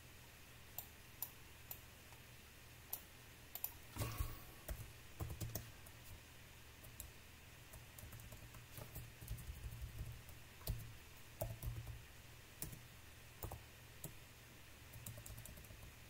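Computer keyboard typing: faint, irregular keystrokes scattered throughout as text is deleted and retyped.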